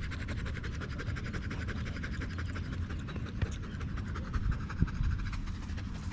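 A bully-breed dog panting fast and evenly, many quick breaths a second, close to the microphone, with a couple of dull thumps about four and a half to five seconds in.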